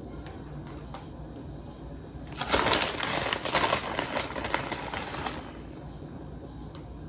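A plastic bag of shredded cheese crinkling and rustling for about three seconds as it is handled, starting a couple of seconds in, over a low steady background hum.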